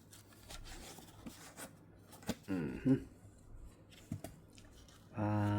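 Scattered light clicks and taps from an acrylic display box and packaging being handled, with a short hummed vocal sound about halfway through and a drawn-out voiced 'uh' near the end.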